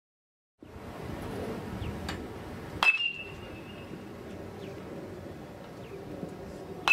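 Metal baseball bat hitting pitched balls: a sharp ping with a short metallic ring about three seconds in, and another right at the end, over outdoor field ambience.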